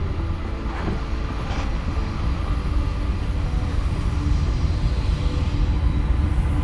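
Approaching diesel freight locomotives: a steady deep rumble that slowly grows louder as the train comes around the bend.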